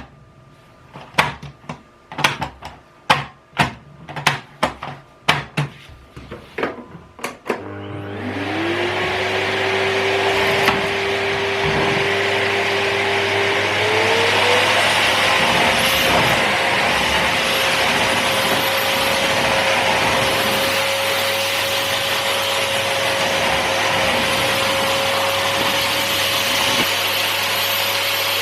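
A run of sharp clicks and knocks, then the Kärcher VC 2 vacuum cleaner's motor switches on about seven seconds in. It whirs up to speed and runs with a steady whine over a loud rush of air, its pitch stepping up about halfway through and then holding.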